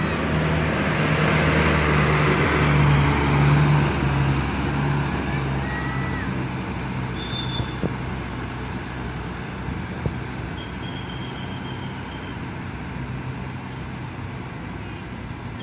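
Diesel engine of a large tour coach pulling out and driving past, loudest a few seconds in and then slowly fading as it moves away. Two short clicks come later.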